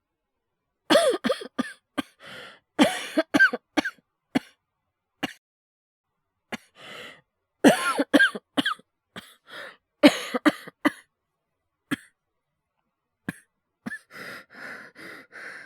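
A man coughing in fits of several coughs in a row, with single coughs between and a quicker run of short coughs near the end. The coughing is acted, performed as the cough of someone who is ill.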